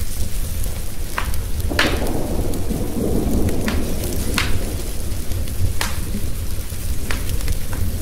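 Wood fire crackling with sharp pops every second or so, over steady rain and thunder from a thunderstorm. A roll of thunder swells about two seconds in and fades about a second and a half later.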